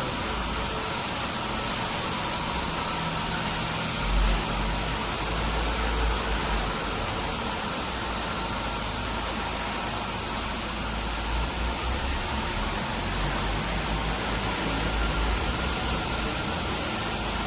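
Wet-cleaning truck running: a steady rushing noise over a low engine rumble, with a faint steady whine.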